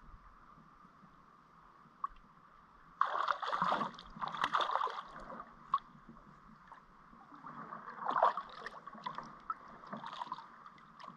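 Water splashing and sloshing in bursts as a hooked fish thrashes at the surface beside a kayak, starting about three seconds in and coming again a few seconds later.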